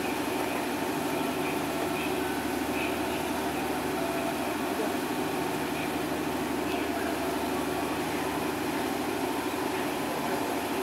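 KiHa 72 diesel multiple unit standing with its engines idling, a steady hum that does not change, with faint chatter from people around it.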